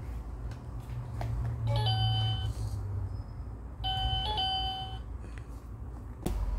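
Baby's electronic learning table giving two short runs of bright, doorbell-like electronic chime tones as its buttons are pressed, each a few steady notes stepping in pitch, about two seconds apart. A sharp click near the end.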